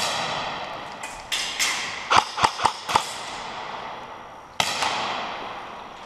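Airsoft guns firing in a reverberant building: single sharp cracks, then a fast string of four shots about two seconds in, and another crack near the end. Each crack leaves a long echoing tail.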